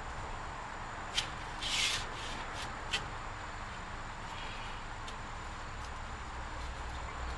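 Hands working a metal smoker stack pipe into its clamp: a short scraping rub about two seconds in, between two light clicks, over a steady faint hiss.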